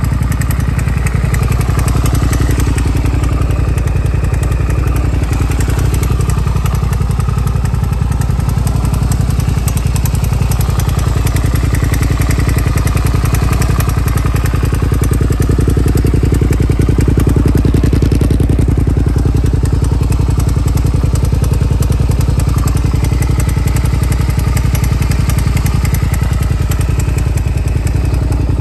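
Suzuki SV400 (VK53A) 90-degree V-twin idling steadily through a modified aftermarket exhaust.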